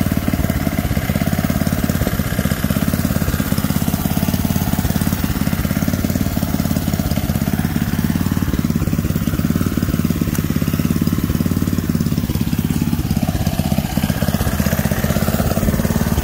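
A small engine or motor running steadily at a constant speed, with a low, throbbing hum.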